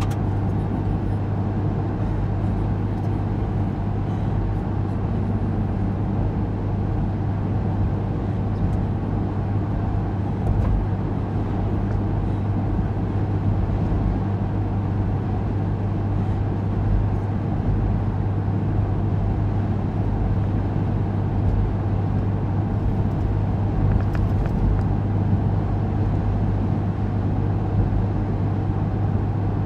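Steady cabin noise of a car driving on a highway: engine and tyre drone with a constant low hum.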